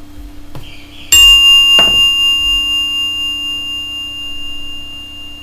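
A single metallic bell-like chime, struck once about a second in and ringing on with several clear tones as it slowly fades, over a faint low steady hum.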